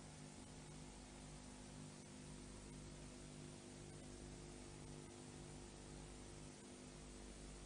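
Near silence: steady hiss with a low electrical hum that pulses about twice a second. Nothing from the filmed ski scene can be heard.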